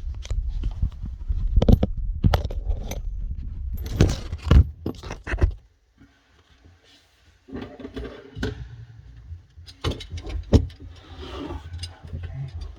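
Metal mounting parts of a garbage disposal clinking and clattering as they are handled, with bumps and rumbling handling noise. The clatter runs busily for about five seconds, stops briefly, then comes back as scattered clicks.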